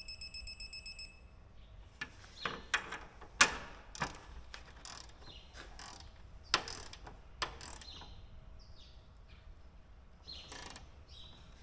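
Digital torque wrench beeping rapidly for about the first second, signalling that the bolt on the header's cutter bar has reached its set torque. After that come scattered ratchet clicks and sharp metal clinks of the wrench on the knife-section bolts, a few much louder than the rest.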